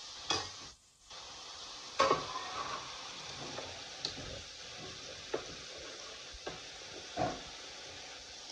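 Chicken, onion and freshly added tomato sizzling in oil in a metal pan, stirred with a slotted steel spatula that scrapes and knocks against the pan every second or so. The loudest knock comes about two seconds in.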